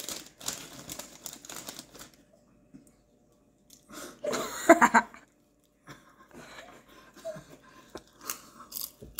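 A plastic potato chip bag crinkling as a hand rummages in it, and a potato chip crunching as it is bitten, as crackles at the start and again near the end. About four seconds in comes a short burst of voice, the loudest sound.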